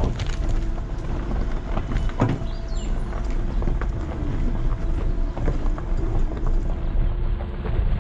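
Vehicle engine running steadily while driving, with wind on the microphone and scattered knocks and rattles.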